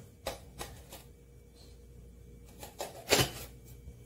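Teaspoon clicking and tapping against a bowl while cardamom powder is added: a handful of light, separate clicks, the loudest about three seconds in.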